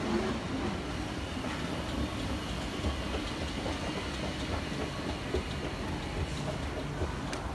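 Inclined moving walkway (travelator) running under a rider: a steady mechanical rumble with light clattering.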